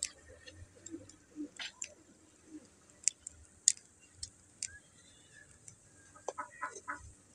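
Scattered sharp pops and crackles from the wood fire under an aluminium karahi of water. About six seconds in comes a quick run of small clinks as steel tongs work in the pan.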